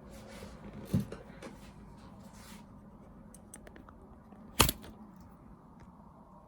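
Light handling noises: a soft thud about a second in, faint rustling, and one sharp knock a little past halfway.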